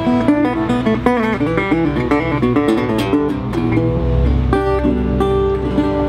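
Resonator guitar fingerpicked in a country-blues style: a fast run of single picked notes, then ringing chords over bass notes from about four and a half seconds in.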